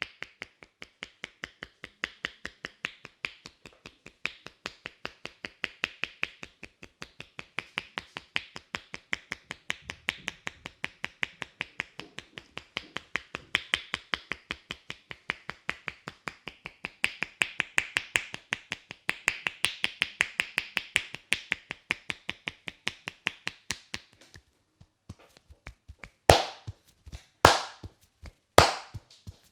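Head massage: hands tapping rapidly on the head, making an even run of sharp clicks, several a second. Near the end this gives way to three louder, heavier strikes about a second apart.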